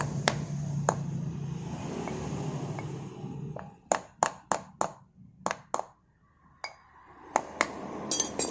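Sharp metal taps, a quick run of four then several more spaced out, as a metal tool knocks against the aluminium engine cover while a new oil seal is seated in its bore. A low steady hum fades away about three and a half seconds in.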